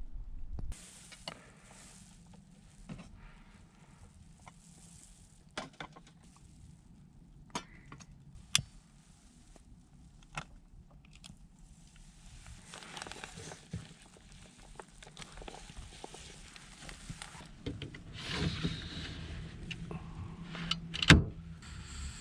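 Scattered clicks and knocks of objects being handled, with a soft hiss during the second half and one louder knock near the end.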